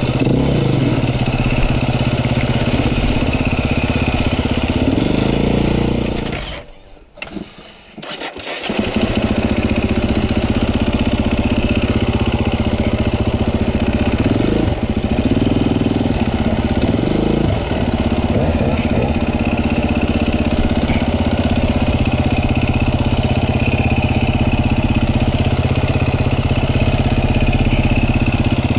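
KTM enduro motorcycle engine running and revving. About six seconds in it cuts out and goes quiet for a couple of seconds, then is restarted and runs on, with the revs rising and falling a few times.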